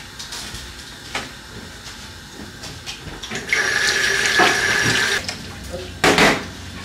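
Kitchen tap running for a little under two seconds, starting about halfway through: a steady hiss of water with a thin held whine. A short louder bump follows near the end.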